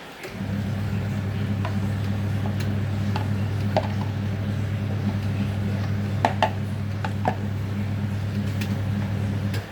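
Washing machine motor running with a steady low hum, with scattered light clicks and knocks; it starts about half a second in and cuts off just before the end.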